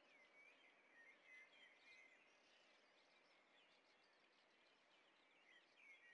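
Faint chirping of small birds: many short, quick calls overlapping throughout, over a steady faint hiss.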